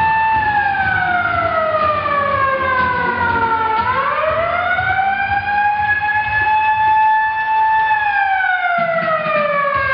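A siren wailing slowly: a held tone falls over about three seconds, swoops back up about four seconds in, holds, and falls again near the end.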